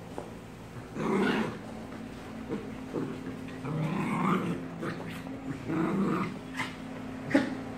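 Dogs play-fighting, growling in rough bursts every couple of seconds, with a sharper, louder sound near the end.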